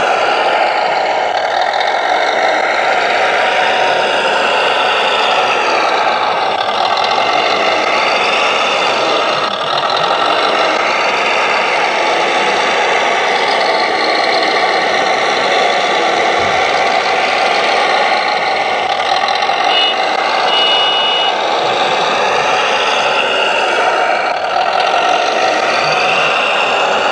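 Simulated diesel engine sound from a radio-controlled Volvo L250 G wheel loader's sound module, running steadily under load, mixed with the whir of its hydraulic pump as the arm lifts and tips the bucket. A short high beeping sounds about two-thirds of the way through.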